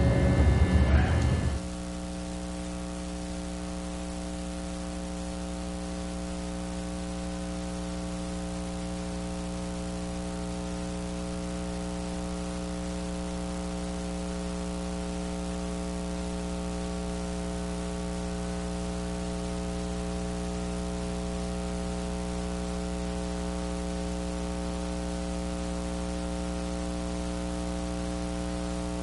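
Steady electrical mains hum with a stack of buzzy overtones and a layer of hiss, from the recording's audio line over a blank picture. A louder sound from the performance cuts off abruptly about a second and a half in.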